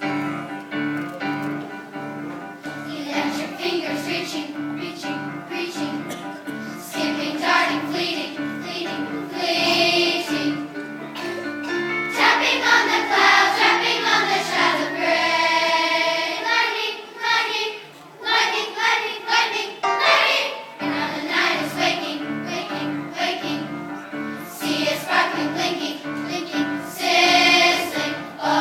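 Children's choir singing a song together over a rhythmic musical accompaniment.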